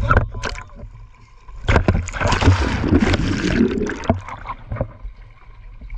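Water rushing and splashing over the camera as it goes under the water beside a kayak, a dense loud wash lasting about two seconds from just under two seconds in. Short knocks and a low wind rumble come before it.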